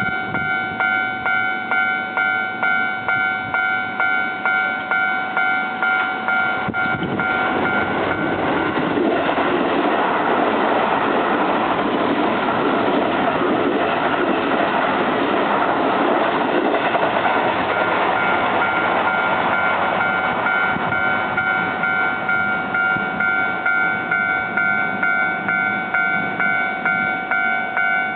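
Level crossing warning bell ringing in a steady repeating pattern of fixed tones, pulsing about once a second. From about a quarter of the way in, a Keio electric train passes at speed over the crossing. Its rushing noise swells up, nearly drowns the bell for some ten seconds, then fades while the bell keeps ringing.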